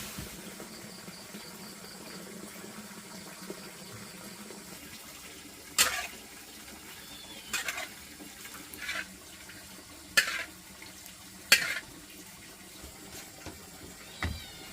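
Water splashing or being poured in six short, separate bursts over a steady faint background hiss.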